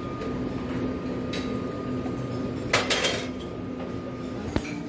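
Metal and glass clinks from stainless-steel buffet chafing dishes as their lids and serving tongs are handled, with a sharp clatter of several quick knocks about three seconds in and a single click near the end, over a steady room hum.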